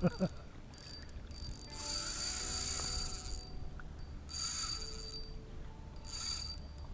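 Fishing reel ratcheting in three bursts, the first and longest about two seconds in, then two shorter ones, as line is played on a hooked trout.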